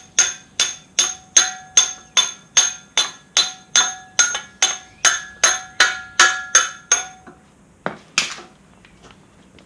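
Steel hammer striking a flathead punch to drive a bucket pin out of a John Deere backhoe: steady ringing metal blows, about two and a half a second, that stop about seven seconds in. A short scraping sound follows about a second later.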